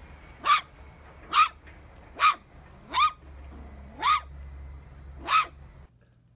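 A small puppy barking: six short, high-pitched barks, roughly one a second, each rising quickly in pitch.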